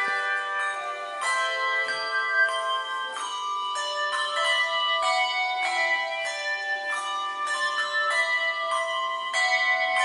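A handbell choir playing a tune on brass handbells: notes and chords are struck every half second to a second, each one ringing on beneath the next.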